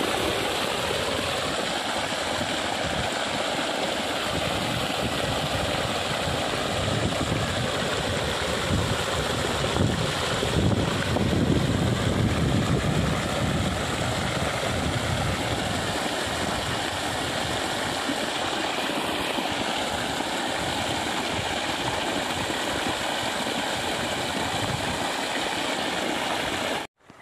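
Irrigation water gushing steadily from a flexible pipe onto soil in a dirt channel, a continuous rushing and splashing. It cuts off abruptly just before the end.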